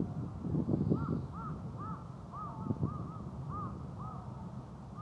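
A bird calling in a quick series of short, clear, arching notes, about two a second, starting about a second in, over a low rumble.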